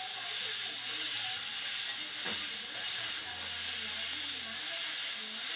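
Steady high-pitched hiss of background noise, with no distinct event in it.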